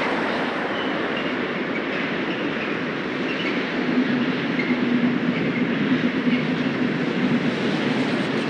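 Busy city street traffic, cars passing in a continuous wash of engine and tyre noise. From about the middle a low, steady hum of a heavier vehicle joins in and the traffic gets a little louder for a few seconds.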